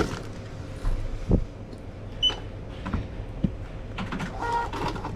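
Handling clatter and knocks at a shop checkout, with a single short electronic beep from the till about two seconds in, and a brief higher tone near the end.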